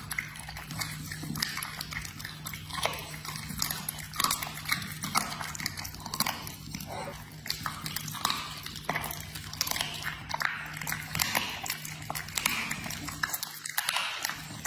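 A dog licking and chewing raw meat from a hand: wet, smacking mouth sounds and irregular chewing clicks.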